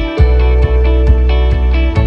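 Background music: guitar-led track with a steady beat.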